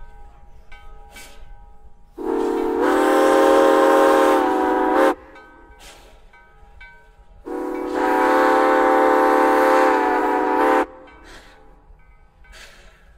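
Steam whistle of locomotive Nevada Northern 81, a Southern Pacific six-chime whistle built by Osborne Whistle Works, blown in two long blasts of about three seconds each, the second coming about two seconds after the first ends. Each blast opens a little thinner and swells to its full chord within about half a second, then cuts off sharply.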